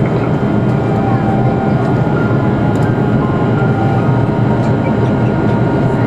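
Steady airliner cabin noise in flight: the engines and rushing airflow heard from inside the passenger cabin as an even, low-heavy rumble.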